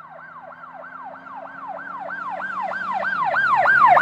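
Emergency vehicle siren in a fast yelp, its pitch sweeping up and down about three times a second and growing steadily louder as it approaches.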